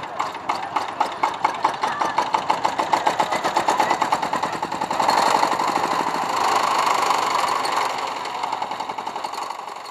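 Small vintage tractor's engine running with an even beat of firing strokes; about halfway through it speeds up and gets louder, then eases back near the end.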